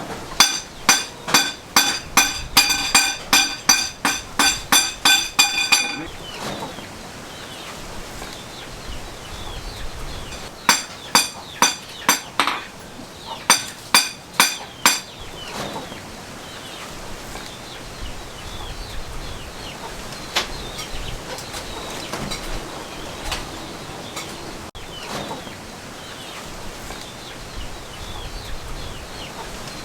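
Two runs of sharp hammer blows on steel, about three a second, each ringing with a clear metallic pitch: about fifteen strikes, a pause of several seconds, then about nine more. After them only faint scattered ticks are left.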